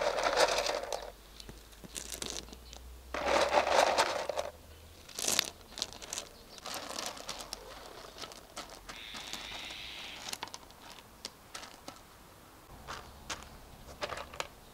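Crushed gravel poured from a plastic pot into the gaps between basalt stepping stones in two rushing pours, then many small clicks and scrapes as the stones are spread by hand.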